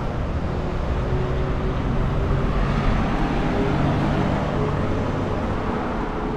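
Road traffic: a steady drone of passing vehicle engines and tyres, with a low hum throughout.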